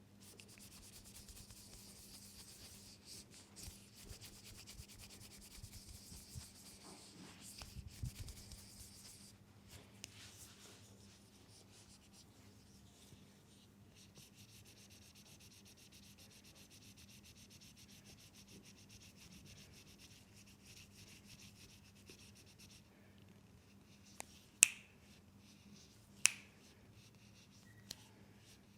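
Hands softly rubbing and kneading an oiled leg, a steady slick rubbing whose texture changes about a third of the way in. Near the end come four sharp snaps, two of them loud.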